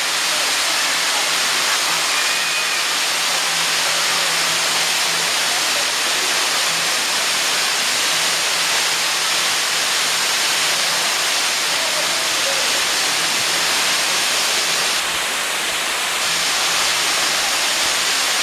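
Waterfall on the Jilabun Stream: water pouring down in a loud, steady, even rush.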